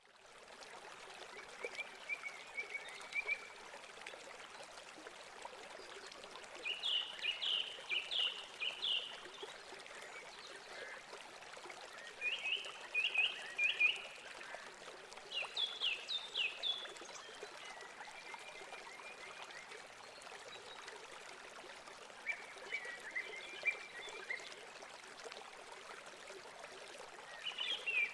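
A steady rushing noise like running water. Over it, runs of quick high chirps come every few seconds, about six bursts in all.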